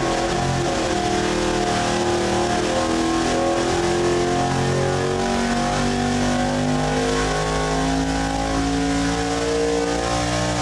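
Carbureted V8 engine running on an engine dynamometer at steady high revs, its pitch creeping slowly upward through the second half.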